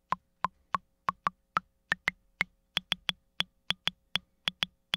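AKAI Rhythm Wolf's analog percussion voice playing a repeating pattern of short wood-block-like hits, about four a second, made by resonant filters being pinged. The pitch of the hits climbs steadily through the first half as the tune is turned up, then jumps to a much higher click about three seconds in.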